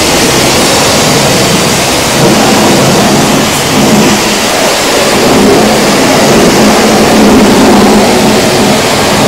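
High-pressure wash wand fed by a steam jenny spraying water against a bus's front axle and undercarriage: a loud, steady rushing hiss.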